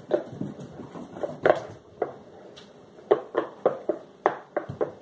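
A spatula stirring a wet, foamy slime mixture of glue and shaving cream in a glass bowl, giving short irregular knocks and scrapes against the glass that come faster about three seconds in.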